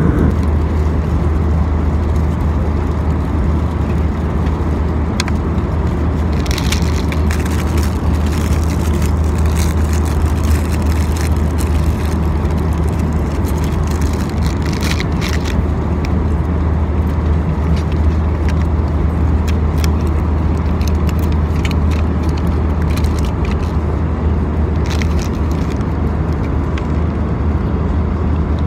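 Steady low rumble of engine and travel noise inside a vehicle's cabin, with a few light clicks and rustles now and then.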